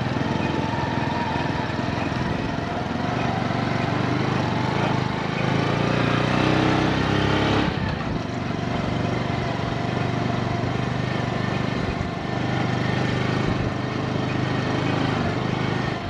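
Motorcycle engine running while riding over a rough dirt track, with a steady rushing noise over it. The sound dips briefly about eight seconds in, then picks up again.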